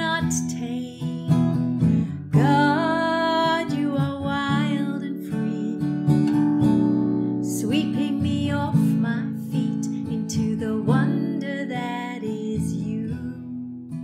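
A woman singing while strumming chords on a steel-string acoustic guitar with a capo.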